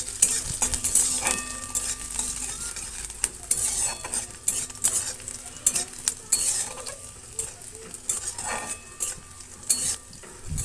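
Chopped green chillies and garlic sizzling in hot oil in a metal kadai, stirred with a metal spatula that scrapes and clicks against the pan again and again.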